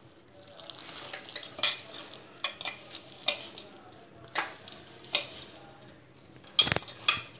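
Hand kneading flour dough in a steel bowl: a soft rustle of flour and dough, broken by irregular sharp clinks as glass bangles and a ring knock against the bowl, several close together near the end.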